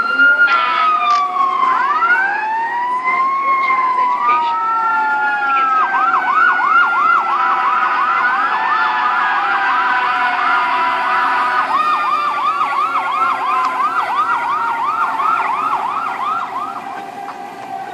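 Fire truck siren sound effect played from a cellphone speaker: overlapping slow rising and falling wails, then about six seconds in a fast yelp of rapid up-and-down sweeps that quickens further about halfway through, easing off near the end.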